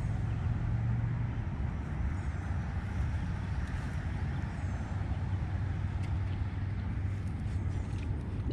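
Steady low rumble of motor traffic with a constant hum, and a few faint high chirps over it.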